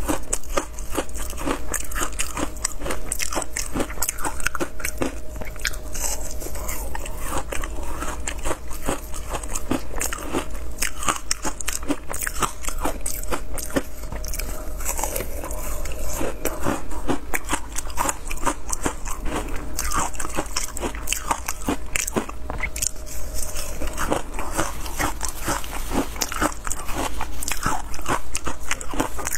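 A block of frozen matcha ice being bitten and chewed close to the microphone: a dense, continuous run of crisp crunches and crackles as the ice breaks between the teeth, with chewing between bites.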